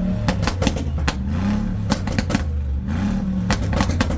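Brabus G-wagon's engine revved hard again and again, each rev climbing and holding for about a second, with sharp cracks and pops in between.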